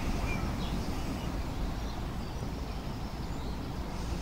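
Outdoor countryside ambience: a steady low rumble and hiss, with a few faint bird chirps in the first second.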